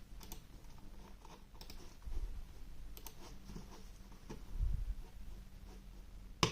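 Scattered clicks from a cheap wired gaming mouse's buttons as it is handled and moved on the desk, with soft low thumps, and one louder, sharp click near the end.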